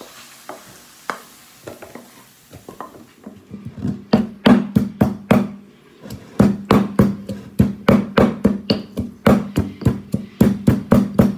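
A pestle pounding in a stone mortar: a steady run of sharp hits, about two to three a second, starting about three and a half seconds in after a few scattered light knocks.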